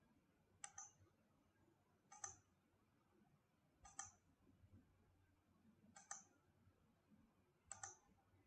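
Faint computer mouse clicks, five in all, each a quick press-and-release pair, spaced about one and a half to two seconds apart.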